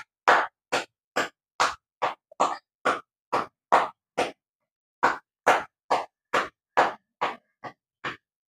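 Rhythmic hand clapping, about two and a half claps a second, with a short break just before the middle.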